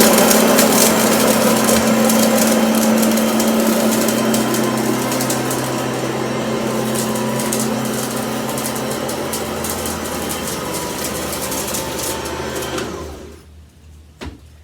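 Hoover ONEPWR cordless stick vacuum running on high with a steady motor hum, while grains of rice and oatmeal crackle and rattle up through it. The sound slowly fades and the motor stops about 13 seconds in, followed by a single click.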